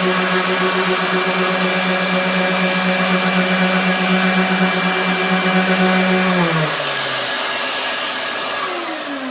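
Ryobi random orbital sander with a 120-grit pad, hooked to a shop vac, running steadily while sanding off an old coffee-table finish. About six and a half seconds in, the motors are switched off and wind down, their pitch falling over the last few seconds.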